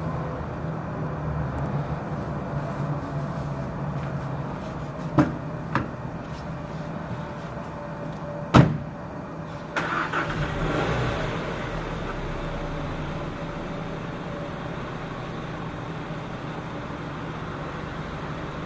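Two clicks and a loud thump. About ten seconds in, the Land Rover Discovery Sport's 2.0-litre turbocharged four-cylinder engine starts from cold with a sudden burst and settles into a steady cold idle.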